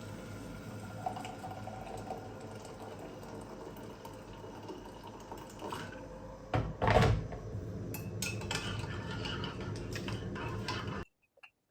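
Dishes and cutlery clinking and knocking while being washed in a sink, with water noise. There is a louder burst about seven seconds in, then a run of quick clinks before the sound cuts off suddenly.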